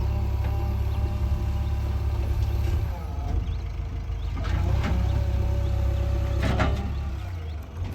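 JCB 3DX backhoe loader's diesel engine running with a steady low drone. Two brief rising sounds cut through it, one about halfway and a stronger one near the end.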